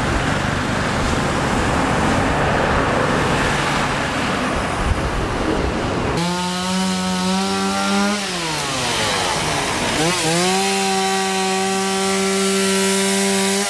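Street traffic noise, then from about six seconds in a chainsaw running at high revs as it cuts through a fallen tree trunk; about two seconds later its pitch falls away and then climbs back, holding steady to the end.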